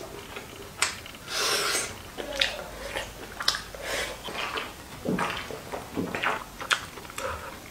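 Close-up eating sounds of spicy field snails pulled off toothpicks and chewed: several short noisy sucks and breaths, with scattered sharp mouth clicks.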